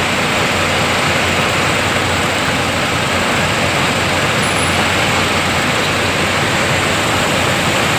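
Fire trucks running their engines and water pumps: a steady, loud, even noise with a constant low hum underneath.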